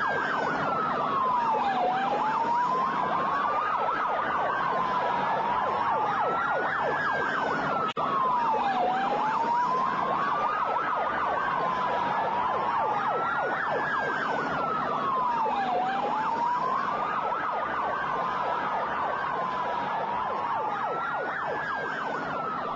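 Emergency-vehicle siren wailing, its pitch sliding slowly up and down every few seconds, with overlapping sweeps as if more than one siren, over a rough, crackly background. The sound cuts out for an instant about eight seconds in.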